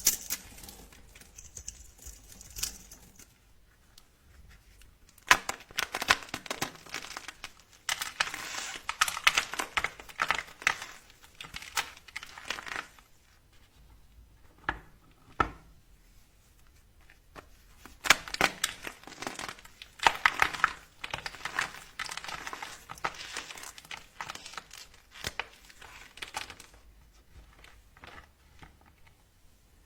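Dry soap crackling and crumbling as it is cut, a dense run of small crisp crunches and clicks in two long stretches with a quieter pause between.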